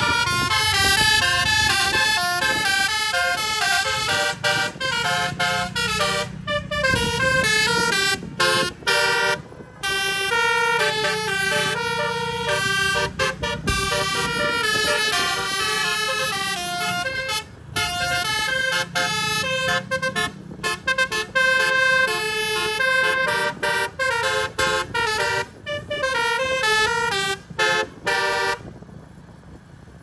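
Bus telolet horn: a multi-tone air horn playing a quick tune of changing notes with short breaks, over a steady engine hum. The tune stops shortly before the end.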